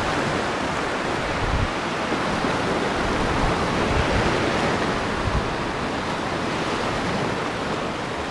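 Sea surf washing over shoreline rocks: a steady rush of waves that swells a little in the middle, with some wind.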